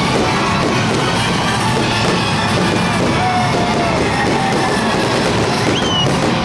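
Loud rock music with a steady, dense sound, with a few voices shouting over it.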